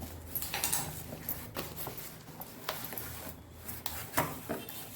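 A cardboard product box being opened and handled: irregular rustling and scraping with small clicks and light knocks.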